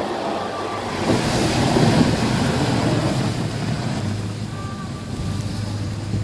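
A snow plow blade pushing and scraping through heavy slushy snow, with a steady rushing sound, over the 2017 Ram 3500's Cummins turbodiesel engine running under load. The engine's low hum comes up more strongly about two-thirds of the way through.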